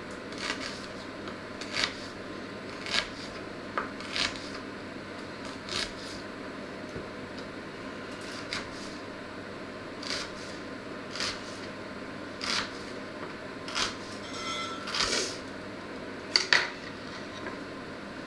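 Kitchen knife chopping a vegetable on a wooden cutting board, single cuts about one every second or so at an uneven pace, over a steady background hum. Two loud sharp knocks come near the end.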